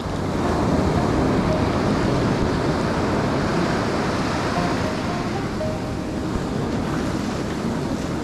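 Ocean surf washing steadily onto a beach, with wind buffeting the microphone.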